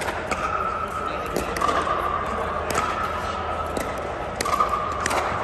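Pickleball play: sharp, irregular pops of paddles striking the hard plastic ball and the ball bouncing on the court, a dozen or so in a few seconds. A high steady tone comes and goes behind them.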